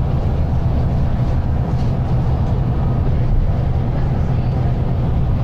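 Volvo B9TL double-decker bus running under way, heard from the top deck: a steady low engine drone with road and body noise over it.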